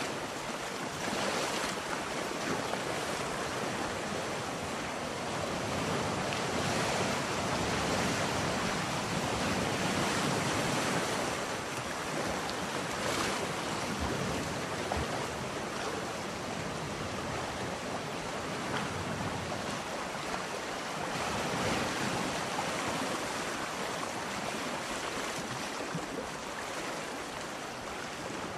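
Steady rushing noise like ocean surf, slowly swelling and easing in level.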